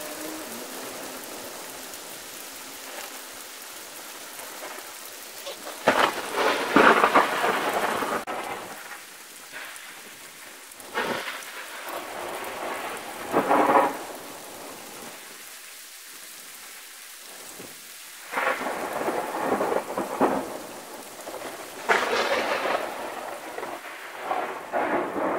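Steady rain with repeated rolls of thunder, several loud rumbles rising out of the rain and dying away. The loudest comes about six seconds in.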